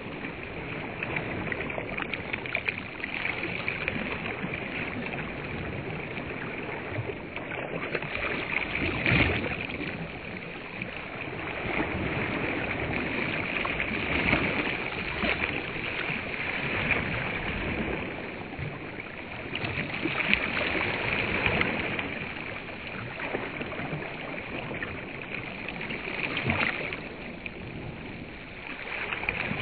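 Small waves lapping on a sandy reservoir shore, a steady wash that swells in louder surges every five or six seconds.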